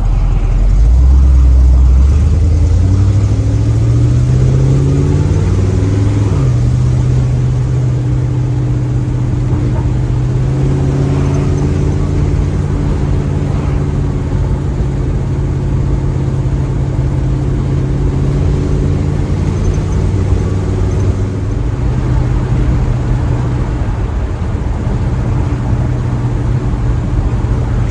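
Small-block Chevy 350 V8 with a new exhaust, heard from inside the car's cabin. It pulls up through the revs for the first several seconds, its note changes suddenly about six seconds in, and it then holds a steady cruising note.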